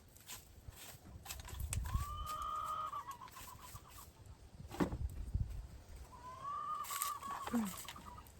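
Chickens calling: two drawn-out calls, each about a second long, rising then holding and trailing off in a stutter, with a short sharply falling call between them.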